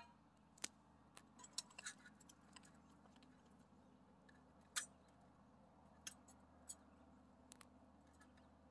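Faint, sparse clicks and light metallic ticks as a small backpacking stove and its fuel bottle are handled and set up, the sharpest tick about five seconds in.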